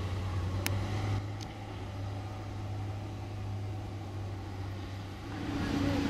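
Heavy diesel engine of a Komatsu PC200 hydraulic excavator running with a steady low hum. Two sharp clicks come within the first second and a half, and near the end the engine note rises and grows louder.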